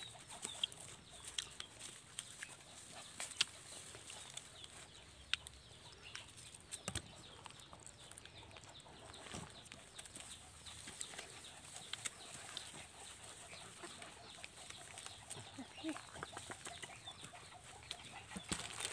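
Faint clucking of free-ranging chickens, with scattered small clicks and rustles.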